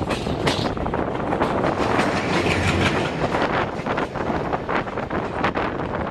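A diesel-hauled double-decker passenger train passing close alongside on the adjacent track, heard from the open doorway of a moving train. The locomotive goes by within the first few seconds, then the coaches' wheels clatter over the rail joints in a dense, uneven run of clicks.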